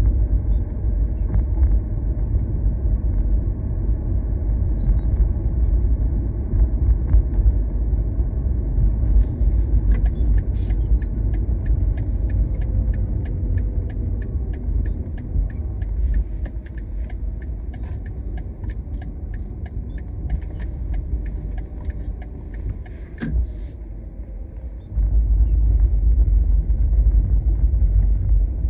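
Road rumble inside a 2021 BMW 330e's cabin while driving. Over it, from about nine seconds in until about twenty-four seconds, comes a fast, regular run of short sharp beeps, roughly three a second: the intermittent beeping whose cause the owner doesn't know. The road noise grows louder near the end.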